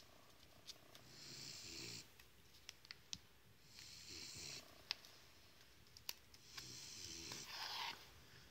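Dog snoring softly in slow, regular breaths, one about every two to three seconds, with small clicks of needle and beads in between.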